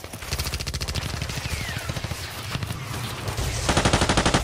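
Rapid automatic gunfire, a long run of machine-gun shots, with a louder, tighter burst about three and a half seconds in.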